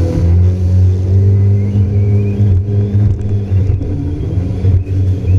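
Yamaha FX HO WaveRunner jet ski running steadily at speed, its engine a loud low drone, with the rushing hiss of water spray.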